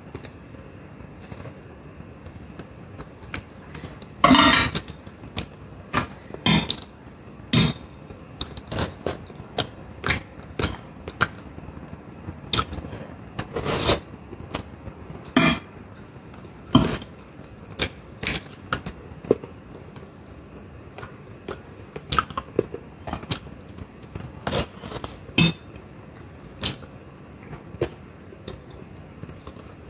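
Close-up eating sounds: a metal fork clicking and scraping on a plate, and mouth sounds of chewing soft vegetables and fish, coming as irregular short clicks about once a second.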